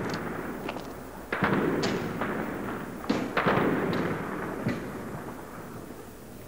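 Scattered gunfire and explosions: about half a dozen sharp reports, each trailing off in a rumble, the loudest a little past one second and around three seconds in, dying away toward the end.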